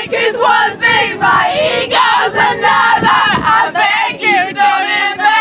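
A group of people singing a pop song together, loudly, with several voices overlapping.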